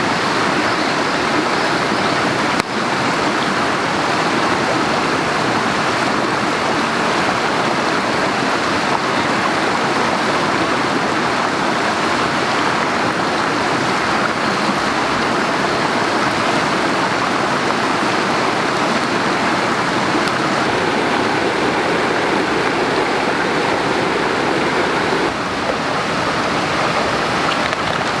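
Steady rush of running water from a stream.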